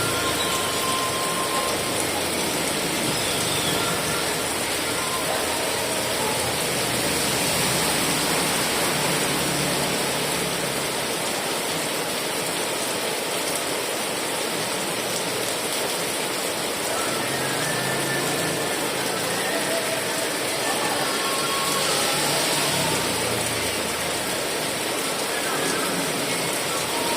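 Heavy rain falling steadily, an even dense hiss, with a faint low hum coming and going at times underneath.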